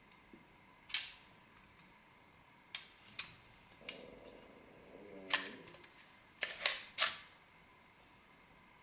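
Metal lightsaber hilt parts handled and taken apart: a scattered series of sharp clicks and clacks, with a short scraping rattle about halfway through.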